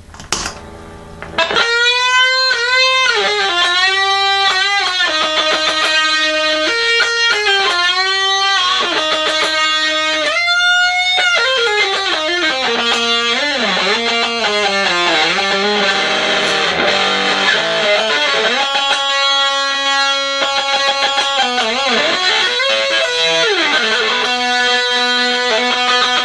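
Electric guitar on its humbucker pickup played through a Buzzsound fuzz pedal, a copy of the Castledine Buzzsound, with sustain full up and the timbre knob at its first setting. A lead line of long held notes, string bends and vibrato starts about a second and a half in.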